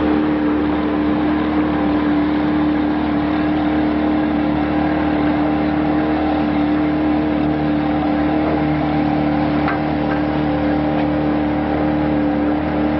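Motorboat engine running steadily at cruising speed: a constant, even drone with a strong steady hum.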